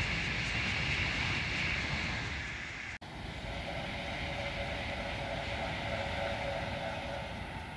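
Taiwan High Speed Rail 700T electric trainset passing at high speed: a steady rushing roar of air and wheels with a bright hiss. The sound cuts out for an instant about three seconds in, then returns lower and a little quieter, easing off toward the end.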